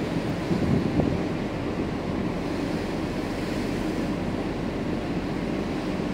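Steady low rumble of a large passenger ferry under way, with the rush of the sea and wind on the microphone.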